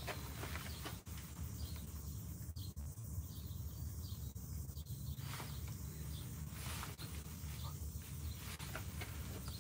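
Quiet background: a steady low rumble with a few faint short rustles and ticks scattered through it.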